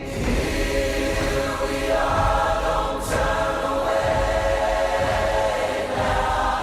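Music with a wordless choir singing sustained chords over a low steady bass, with a brief whoosh about three seconds in.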